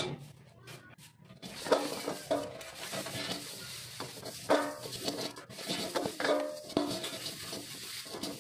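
Small metal carburetor parts clinking and being swished in a container of cleaning fluid, with scattered clicks over a steady hiss.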